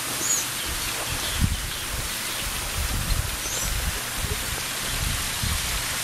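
Steady rush of a small waterfall splashing into a pool, with two short bird chirps, one near the start and one a little past the middle, and some irregular low thumps.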